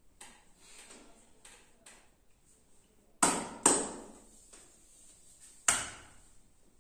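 Three sharp slaps of a masseur's hands on bare skin: two in quick succession a little past halfway, the third about two seconds later. A few faint taps come before them.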